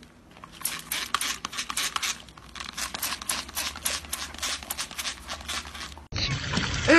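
A hand-held trigger spray bottle squirting in quick, short hissing bursts, several a second, as a German Shepherd snaps at the spray. About six seconds in this gives way to a louder, steady rush of running water.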